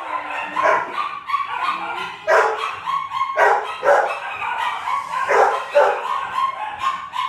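Dogs barking and yipping over and over, about two short barks a second.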